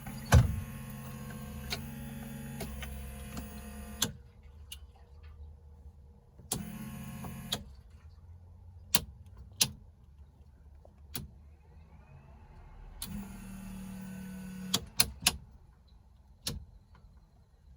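Starter motor of a K-series-swapped Honda CRX whirring in three short bursts, each switched on and off with a click, with a few separate clicks between; the engine cranks but does not start.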